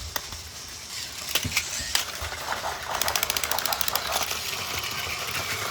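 Plastic Plarail toy train and track pieces clicking and clacking as they are handled, with a few sharper knocks and a rapid run of clicks in the middle.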